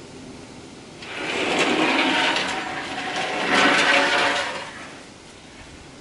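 A large flat board dragged across wet concrete, scraping in two long surges.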